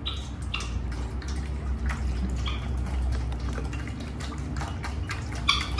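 Water poured from a plastic bottle dribbling and dripping into a steel plate, in irregular small splashes and plinks over a steady low hum.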